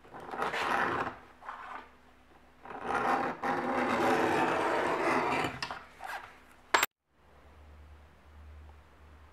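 Rasping strokes of hand abrasion along a spring-steel machete blade as its bevel is shaped: two short strokes, then one long stroke of about three seconds, a short one, and a sharp click before the sound cuts off suddenly to a faint low hum.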